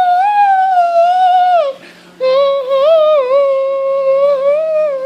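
A high voice singing long wordless held notes in two phrases: the first ends about a second and a half in, and after a short breath the second, lower phrase wavers slightly and runs on past the end.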